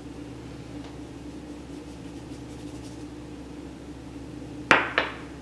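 Two sharp knocks about a third of a second apart near the end, from kitchen utensils or a metal cake pan while buttered pans are dusted with flour, over a faint steady hum.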